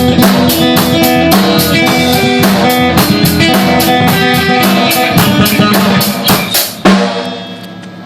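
Blues band playing guitar and drums with a steady, quick cymbal beat. The song ends on a final hit about seven seconds in that rings out and fades away.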